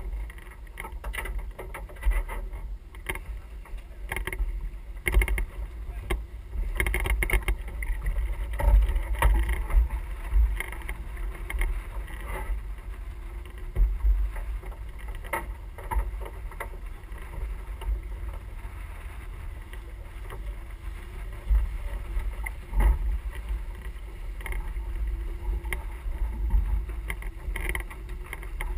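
Wind buffeting the microphone and water rushing along the hull of a sailing yacht under way, with irregular knocks and clicks on deck.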